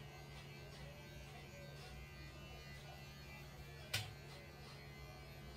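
Electric pet hair clippers running steadily with a low hum as they shave a cat's fur short, with one sharp click about four seconds in.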